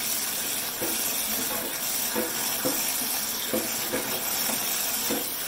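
Kitchen tap running a steady stream of water onto chickpeas in a stainless steel colander in a steel sink. Short soft knocks recur about every half second as a hand stirs the chickpeas under the water.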